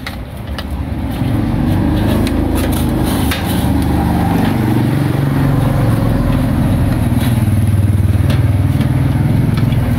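An engine running with a wavering low hum that grows louder through the second half, with a few light clicks over it.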